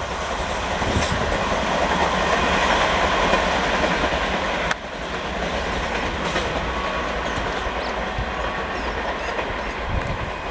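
Express train coaches rushing past at speed, with a steady rush of noise and wheels clattering over the rail joints. The sound dips suddenly for a moment about halfway through.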